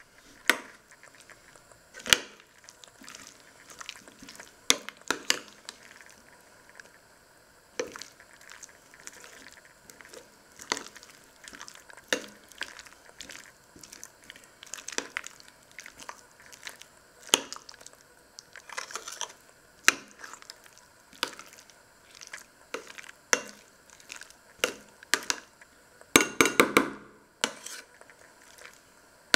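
Metal utensil mashing potatoes in a stainless steel saucepan: irregular clinks and scrapes of metal against the pot, with a quick flurry of strikes near the end.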